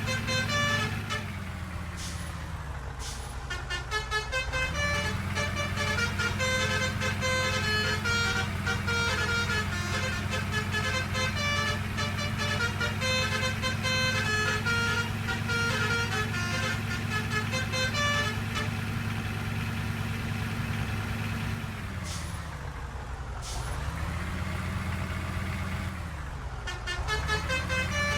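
A bus's Basuri telolet horn, a multi-tone musical air horn, playing fast melodic runs of short notes over the bus's engine running underneath. The engine's note dips and comes back up three times, early on, and twice near the end.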